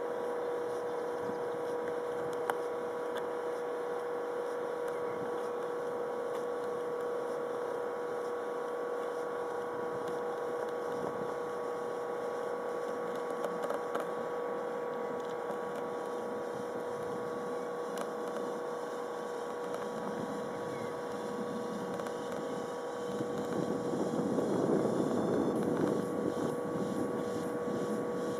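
Jet engines of a twin-engine UPS cargo jet on landing approach: a steady whine over a distant rumble that swells louder near the end as the aircraft comes closer.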